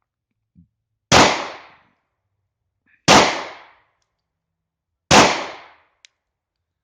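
Three 9mm pistol shots from a German P.08 Luger, evenly spaced about two seconds apart, each with a short ringing tail.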